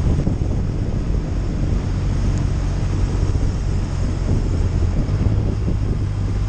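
Touring motorcycle engine running steadily at road speed, with wind rushing over the microphone. The engine note rises slightly about five seconds in.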